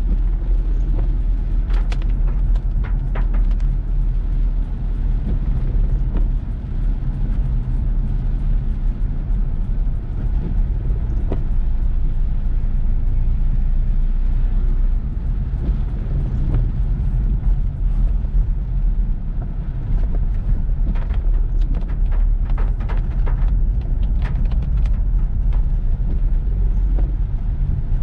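Car driving through heavy rain: a steady low rumble of road and engine noise. Scattered faint clicks come about two to four seconds in and again in the last third.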